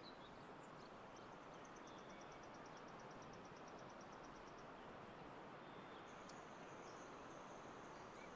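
Near silence: faint steady outdoor background hiss, with a faint high, rapid ticking trill running for about three seconds in the first half and a faint high thin tone near the end.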